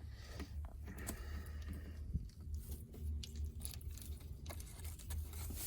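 Soft rustling and small clicks of a croissant sandwich and its wrapper being handled, over a steady low rumble.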